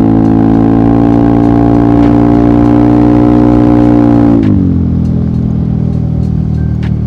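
Yamaha XMAX scooter's single-cylinder engine running under throttle, its pitch creeping up slowly, then falling sharply about four and a half seconds in as the revs drop, and settling at a lower steady pitch.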